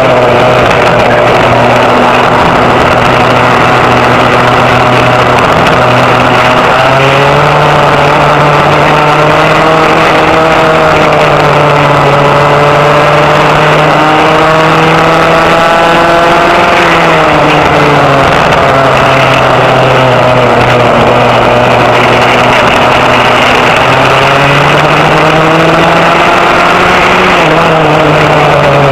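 Vintage rear-engine racing go-kart's engine, heard from on board, running hard: its pitch climbs and drops back again and again as the kart accelerates and slows through the laps.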